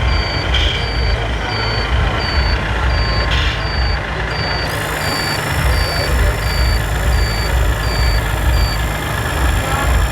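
RC model truck's sound-module reversing beeper, beeping evenly about once every 0.7 s over a low engine rumble, and stopping shortly before the end. About halfway in, a high steady whine sets in.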